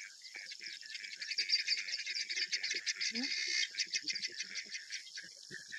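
Many birds calling at once in a dawn chorus, a dense mix of rapid chirps and trills, with a short low rising call about three seconds in.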